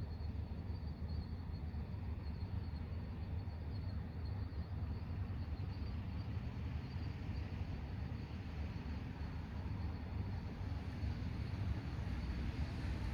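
Night ambience: crickets chirping steadily over a low, constant rumble. Near the end a hiss grows as a car starts to approach.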